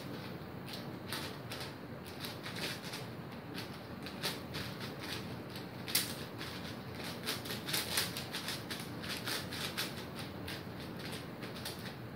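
Cubicle Magnetic WuShuang 5x5 speed cube being turned at speed during a solve: a fast, irregular run of plastic clicks and clacks as the layers are turned, the loudest clack about six seconds in.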